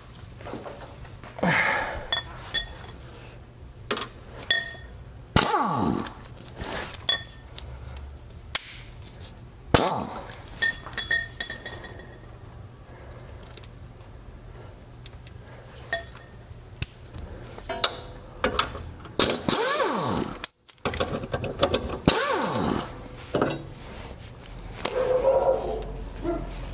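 Pneumatic impact wrench run in several short bursts to spin out already-loosened subframe plate bolts, among clinks and knocks of metal tools and bolts. The longest and loudest burst comes about three-quarters of the way through.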